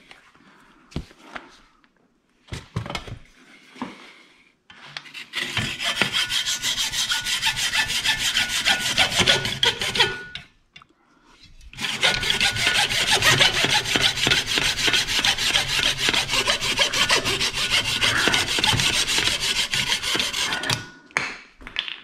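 Hacksaw cutting through the black plastic mounting ear of a Ford Coyote drive-by-wire throttle pedal clamped in a vise: steady back-and-forth sawing strokes. A few light clicks and knocks come first, then a run of sawing about five seconds in, a brief pause, and a second, longer run of sawing.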